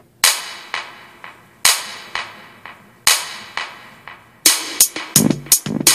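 Drum intro of a rock song: a loud, sharp snare-and-cymbal hit about every second and a half with softer hits between, each ringing away. Near the end the hits come faster and bass notes come in as the band starts.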